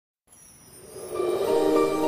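Background music fading in from silence, with long held tones.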